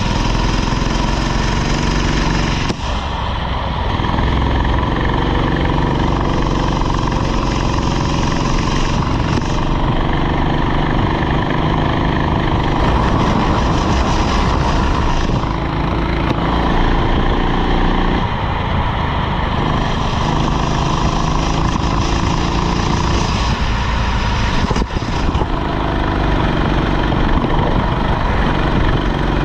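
Rental go-kart engine running hard, its pitch dropping off briefly about three seconds in, again past the middle and near the end, then climbing back as it pulls.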